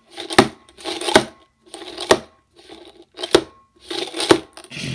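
Sharp plastic clacks from a Bean Boozled game spinner being flicked by hand, five knocks about a second apart.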